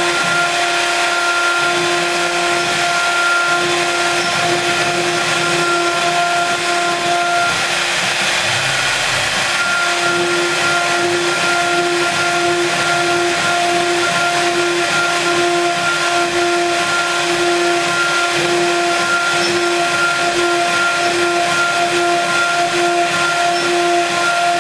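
SM-2130 CNC router's high-speed spindle running with a steady high whine. About a third of the way in the whine drops out for a couple of seconds under a rush of noise, then comes back.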